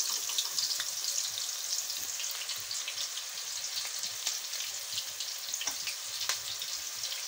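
Gram-flour pakoras (spinach, potato and onion) deep-frying in hot ghee in an aluminium karahi while more batter is spooned in: a steady sizzle with many small crackles and a few sharper pops.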